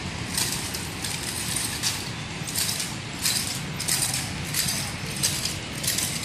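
Nunchaku whirled fast, swishing through the air in a string of short whooshes, roughly two a second and slightly uneven.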